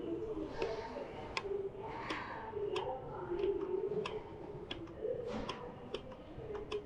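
Footsteps clicking at a walking pace, roughly one or two sharp clicks a second, with people's voices murmuring in the background.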